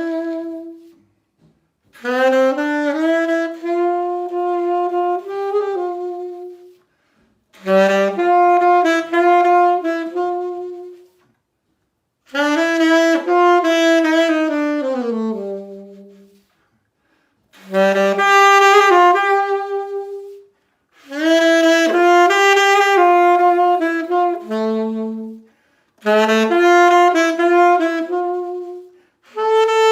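Solo saxophone playing a slow melody without accompaniment, in phrases of a few seconds each with short breath pauses between them.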